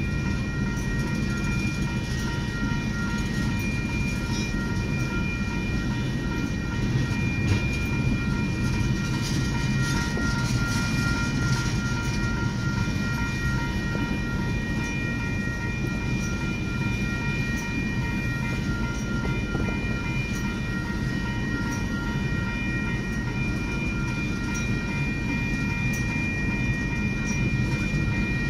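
Long freight train of loaded oil tank cars rolling steadily through a grade crossing: a continuous low rumble of wheels on rail, with several steady high-pitched tones over it, heard from inside a car's cabin.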